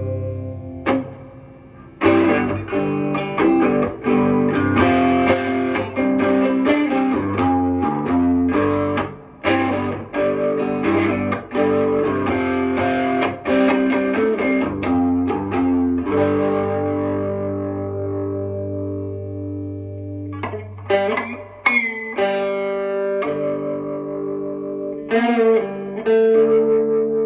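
Electric guitar played through a Fender Deluxe Reverb amplifier: picked single notes and chords, a chord left ringing and slowly fading in the middle, then more picked phrases near the end.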